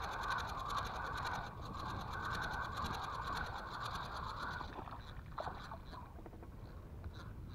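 Spinning fishing reel being cranked steadily, a fast even rasping whirr, as the line is wound in; the winding stops about four and a half seconds in. After that come faint, scattered splashes and small clicks as a hooked small fish breaks the surface.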